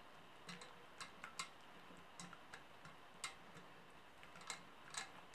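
Faint, irregular clicks and taps of a wire whisk against the side of a stainless steel saucepan as it stirs butter into thick lingonberry sauce.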